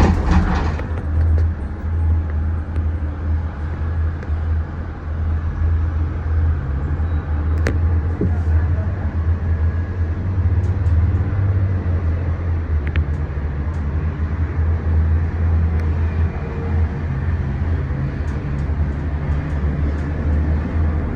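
Steady low rumble and hiss inside a Disney Skyliner gondola cabin as it travels along the cable, with a few faint clicks.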